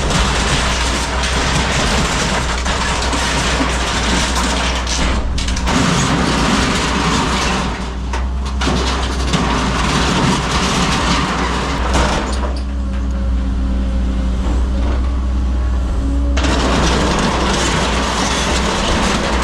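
Compact excavator's diesel engine running close by: a steady low hum under loud working noise that thins out for a few moments now and then.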